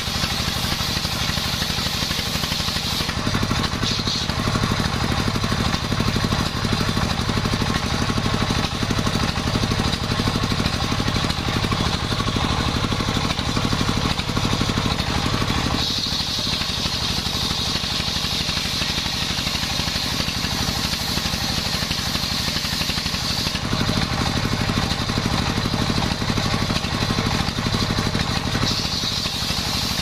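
Large circular saw blade of a homemade sawmill ripping through a young coconut-palm log, over the steady drone of the engine that drives it. The sound shifts a few times as the cut goes on, turning hissier and higher for several seconds past the middle and again near the end.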